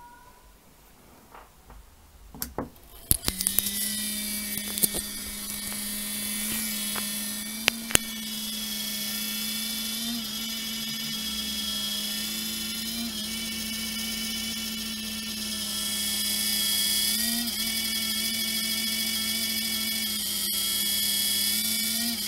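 Anet A8 3D printer's small cooling fans starting up after a few clicks about three seconds in, then running with a steady, high-pitched whirring whine. The fans have plain sleeve bushings rather than ball bearings, and the noise comes from dust that has got into them.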